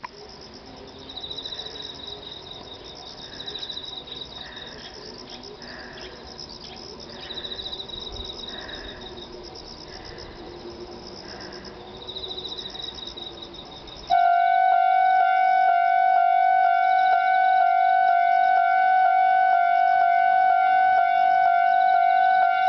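Faint repeated high chirping, then about two-thirds of the way through a Japanese railway level crossing's electronic warning bell starts abruptly and rings loud and steady with a regular pulsing beat. Its tone is a slightly unusual variant of the standard crossing sound.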